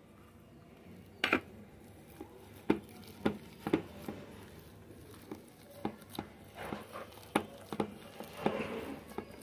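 Steel bowls knocking and clinking as paneer cubes are tipped into a steel mixing bowl and worked by hand into mashed potato and spinach mix. Irregular sharp taps, a dozen or so, with soft mixing noise between them.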